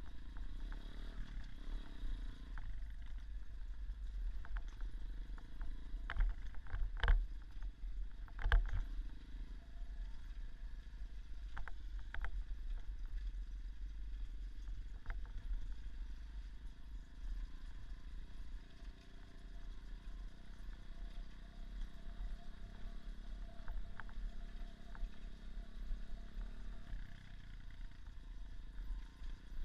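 Small off-road motorcycle engine running with slowly changing revs under a heavy low rumble on the microphone. Several sharp knocks, the two loudest close together about a quarter of the way in.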